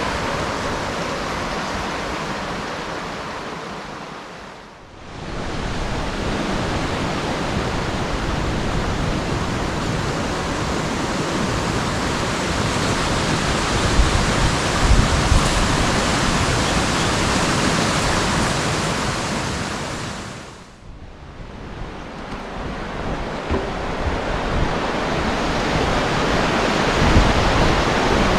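Rushing water of a waterfall, a loud, steady wash of noise. It dips briefly about five seconds in and again about twenty-one seconds in.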